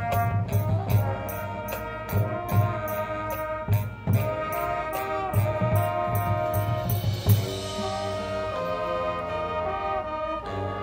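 Marching band playing: brass over a steady percussion beat, then a loud crash about seven seconds in, after which the brass holds a long sustained chord.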